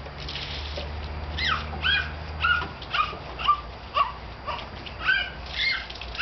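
A dog yipping over and over, short high yelps that each drop in pitch, about two a second.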